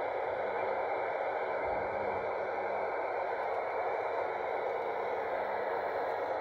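Steady FM radio static: the amateur radio receiver hissing on the SO-50 satellite downlink with no voice coming through, heard from a phone about 40 feet away.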